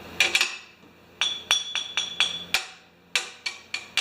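Hammer tapping on a steel bending die and stainless steel sheet metal: about a dozen sharp, ringing metallic taps at an uneven pace, nudging the die into line with the mark before the bend.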